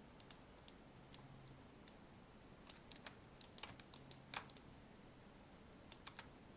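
Faint, irregular clicks of a computer keyboard and mouse, some single and some in quick little runs, over a low background hum.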